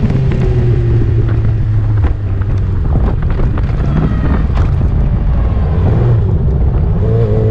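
Engine of a racing vehicle running hard at speed, heard onboard with heavy wind buffeting the microphone; its pitch sags gently early on and there is a brief drop in level about two seconds in.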